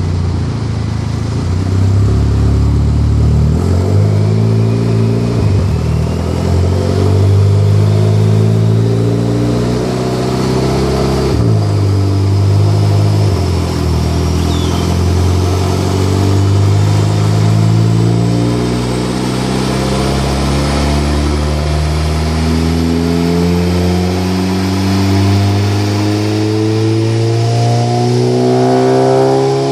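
A tuned VW Golf 6 GTI's turbocharged 2.0-litre four-cylinder, fitted with a K04 turbo, running a long dyno pull under load. The engine note climbs slowly in pitch, with a brief break about eleven seconds in, and a high whine rises steadily alongside it.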